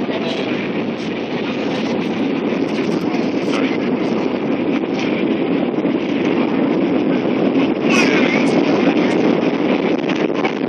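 Airbus A321 cabin noise during landing: the steady rush of engines and airflow, growing a little louder about eight seconds in.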